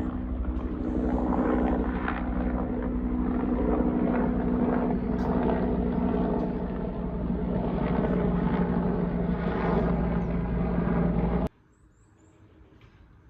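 Steady engine drone with a low rumble and a constant hum, which cuts off suddenly near the end, leaving near quiet.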